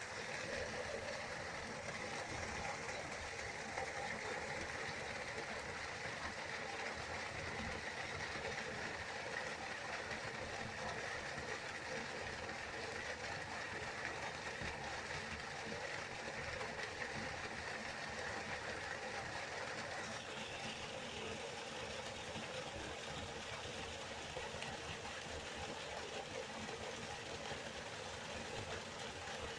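River water flowing steadily in a continuous rush; its tone shifts slightly about twenty seconds in.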